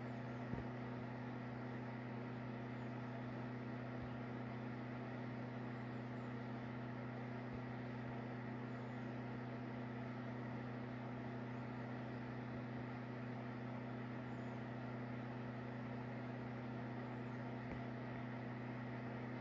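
A steady low hum with a faint hiss, holding level without change.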